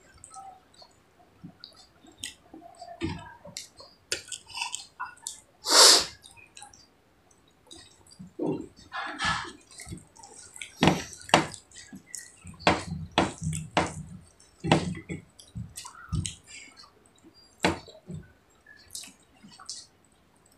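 Close-up eating sounds: scattered wet mouth clicks, chewing and lip smacks as rice and curry are eaten by hand from steel plates, with one louder burst about six seconds in.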